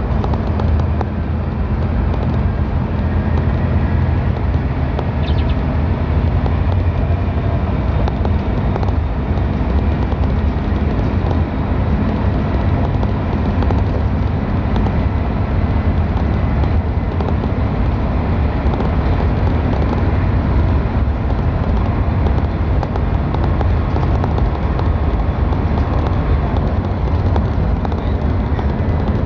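Steady low rumble of a moving road vehicle: engine and tyre noise on wet tarmac, unbroken and even throughout.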